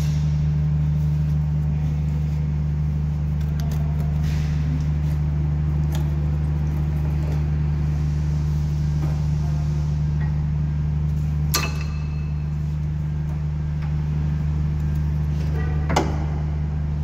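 A steady low mechanical hum throughout, with a sharp metallic clink about two-thirds through and another near the end as the worn front brake pads are handled and pulled from the caliper bracket. The pads are worn right down.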